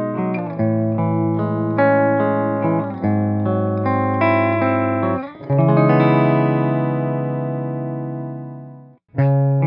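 Clean-toned PRS electric guitar with EMG humbuckers picking a chord progression of arpeggiated chords. About halfway through, a final chord rings out and slowly fades, then stops abruptly. Just before the end, a second guitar, a Fender Strat, starts playing.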